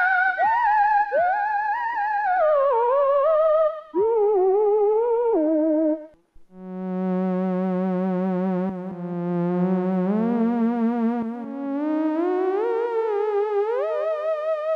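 Korg minilogue analog synthesizer playing sliding single-note lines with heavy vibrato. After a brief break about six seconds in, its theremin patch starts on a low, wavering tone that glides steadily higher.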